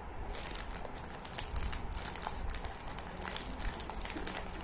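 Biscuit packet wrapper crinkling and crackling as it is handled, a dense run of short irregular rustles.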